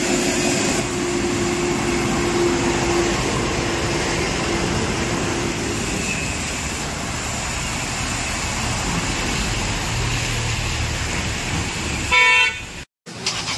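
Motor traffic driving through shallow floodwater on a road: trucks, vans and auto-rickshaws running, with a steady wash of tyre splash and engine noise. A short, loud vehicle horn toot sounds near the end.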